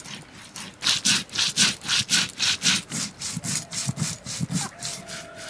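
Cumin and coriander seeds being ground on a stone slab with a cylindrical stone roller (sil-nora): rhythmic rasping strokes of stone on stone, about three a second, growing loud about a second in.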